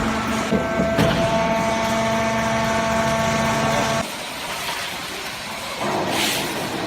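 Foam baling press's hydraulic pump and electric motor running with a steady hum, with a couple of knocks in the first second. The hum cuts off abruptly about four seconds in, and a short hiss follows near the end.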